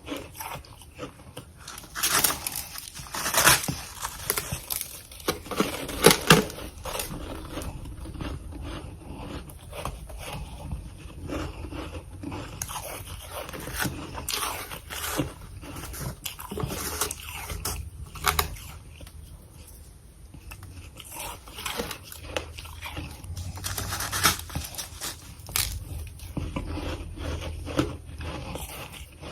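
Freezer frost being bitten and chewed close to the microphone: irregular crunches and scrapes throughout, with the loudest bites a few seconds in.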